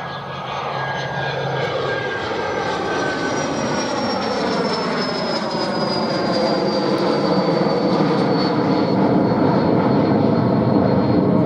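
Twin-engine Learjet business jet climbing out just after take-off and passing close overhead: jet engine noise growing steadily louder, with a high thin whine that slowly falls in pitch as it goes by.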